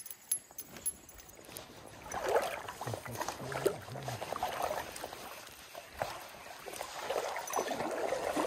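Wader-clad legs wading through a shallow stream, water swishing around them with each stride, about once a second. There are a few light clicks in the first second.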